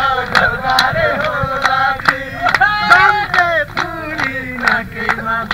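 Group of voices singing and chanting together in a lively festival song, with sharp handclaps cutting through.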